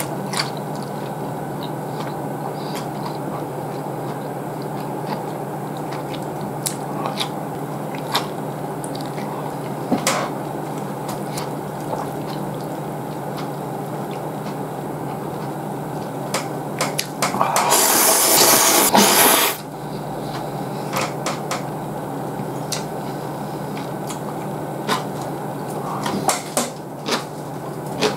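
Someone eating ramen: scattered small chewing and chopstick clicks, and one loud, hissing slurp of noodles lasting about two seconds, roughly two-thirds of the way in. A steady low hum runs underneath.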